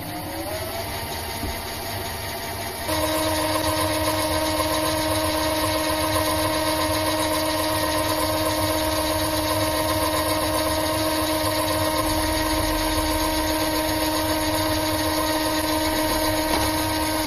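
Mini lathe motor spinning up and running with a steady whine. About three seconds in it gets louder and its pitch changes, then it runs steadily on.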